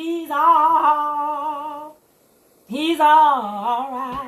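A woman singing a gospel line unaccompanied, in two held, wavering phrases with a short pause between them about two seconds in.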